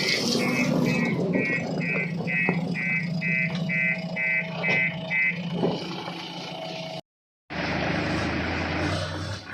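Heavy diesel machinery engine running steadily, with a rapid electronic beeper sounding about three times a second that stops about five seconds in. The sound drops out for half a second near seven seconds, then engine noise resumes.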